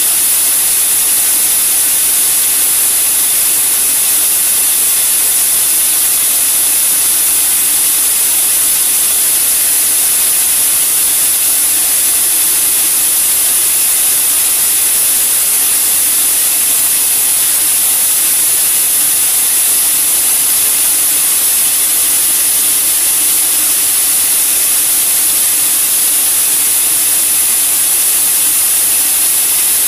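Large sawmill log band saw running, a loud, steady, high-pitched noise that does not change.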